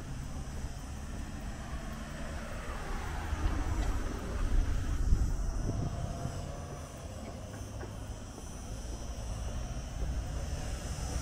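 A motor vehicle passing, its sound swelling and falling in pitch about three to five seconds in, then fading back into a steady low rumble.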